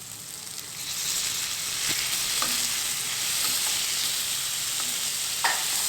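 Onion, tomato and fresh karpooravalli (Indian borage) leaves sizzling in hot oil in a kadai while being stirred. A steady frying hiss builds over about the first second, with a few light clicks of the stirring spoon against the pan, the sharpest near the end.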